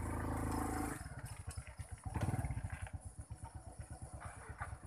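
A small engine running, then settling about a second in to an idle with even low pulses, about eight to ten a second. It briefly gets louder a second later.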